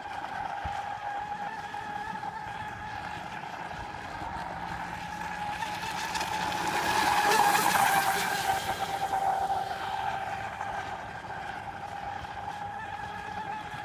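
Radio-controlled catamaran boat running on the water, its electric motor and propeller giving a steady high whine that swells as the boat comes close about halfway through, then fades as it moves away.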